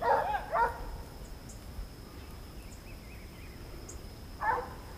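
Hunting dogs barking at a distance: two short barks right at the start and another near the end. A steady high insect drone runs underneath.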